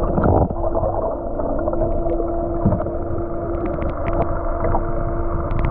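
Muffled underwater sound from a camera held below the surface: the boat's engine heard through the water as a steady hum over a low rumble, with scattered small clicks and water movement against the housing.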